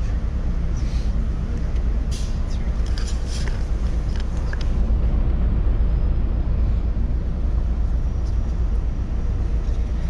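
Steady low engine and road rumble heard from inside a moving tour bus.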